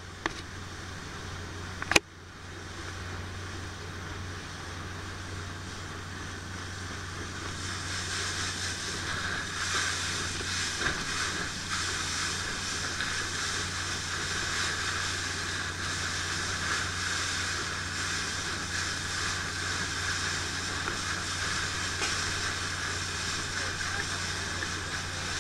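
Motorboat engine running steadily under way while towing a board rider, with rushing wind and water spray over it that grows louder about eight seconds in. A single sharp click about two seconds in.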